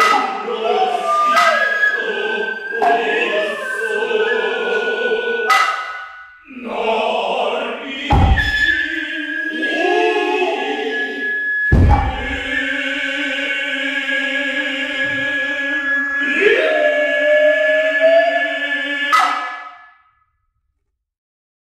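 Noh music: the chorus chanting in long held notes over the nohkan flute's high steady line, with sharp drum strikes and two heavy thuds about three and a half seconds apart. It is the close of the play, and the sound stops about twenty seconds in.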